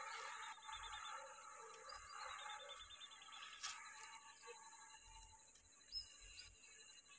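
Faint night insect chorus: a steady high hiss with runs of rapid, evenly spaced trilling pulses. A few short high chirps and one brief click about three and a half seconds in.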